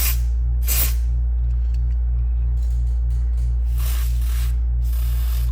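Aerosol can of DeoxIT contact cleaner sprayed in short hissing bursts, once about a second in and twice near the end. A steady low electrical hum, pulsing about twice a second, runs underneath.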